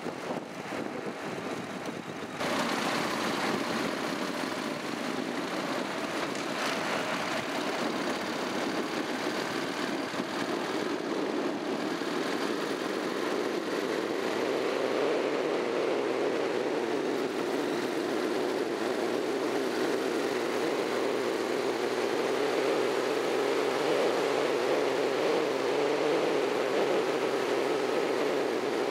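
Onboard sound of a Honda NC700X motorcycle riding at road speed: a steady rush of wind and road noise over the engine's drone. It steps suddenly louder about two seconds in.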